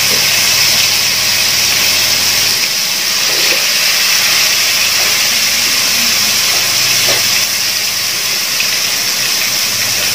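Marinated chicken pieces deep-frying in hot oil: a loud, steady sizzle.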